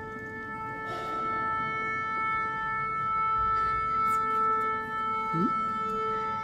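A woodwind holds one long steady note at about concert A, the tuning note for an orchestra. A brief rising slide from another instrument comes about five seconds in, after which the held note wavers.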